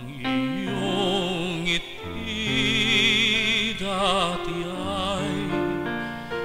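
A man singing in a classical, operatic style with a wide vibrato on held notes, over a piano accompaniment.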